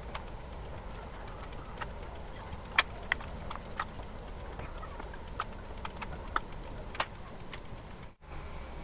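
Scattered light clicks and taps of a metal spoon against a pan and the filling as coconut-nut stuffing is scooped and pressed into a split ripe banana, over a steady low hum.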